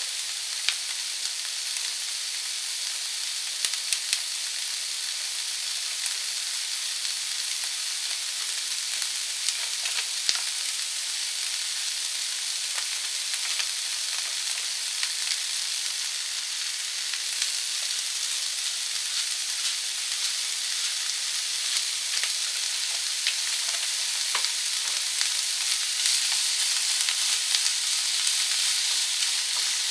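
Green peppers sizzling steadily as they stir-fry in a pan, with scattered sharp clicks; the sizzle grows a little louder near the end.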